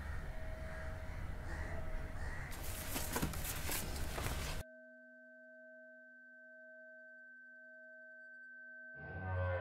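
Room ambience with a low hum and a run of rustles and clicks, then a sudden cut to a steady drone of pure held tones, like a tuning fork. Bowed string music comes in near the end.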